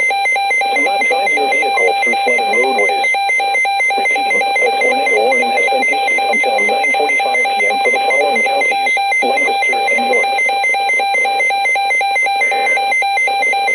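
Electronic emergency alert tone sounding without a break, a steady pitched tone with a fast pulsing buzz in its upper overtones, over a wavering lower sound.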